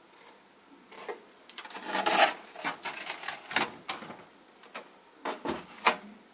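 Foam-board model airplane being handled: a run of irregular clicks, creaks and short rubs of the foam sheets against hands and each other, with a few light knocks against a wooden tabletop. Loudest about two seconds in.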